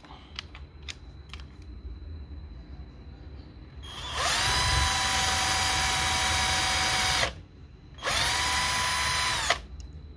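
Handheld electric drill boring a hole into the wooden frame: a few light clicks of handling, then the drill runs in two bursts, one of about three seconds and a shorter one, each spinning up to a steady whine and winding down.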